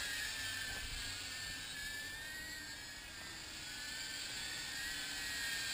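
High-pitched propeller buzz of a small 2S cinewhoop drone with 1404 motors and 63 mm props in flight, its pitch wavering slightly as the throttle is adjusted. It grows a little quieter around the middle and louder again near the end.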